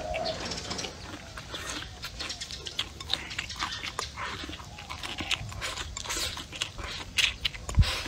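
Close-up eating sounds: a person slurping rice noodles and chewing mouthfuls of noodles and rice, with many short wet smacking and crackling clicks. A low thump near the end.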